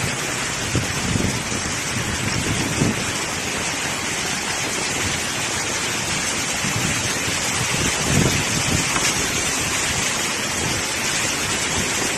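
Heavy tropical downpour with strong wind: a steady, loud rush of rain, swelling briefly with low gusts about a second in, near three seconds and about eight seconds in.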